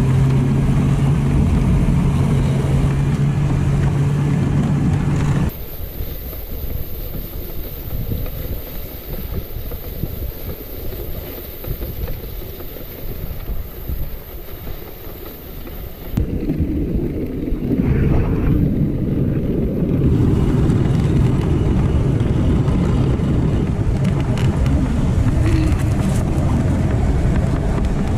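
Dog sled travelling over a packed snow trail: a noisy rumble and hiss of the runners, with wind on the microphone, and a steady low hum in the first few seconds. The sound changes abruptly about five seconds in and again just past the middle.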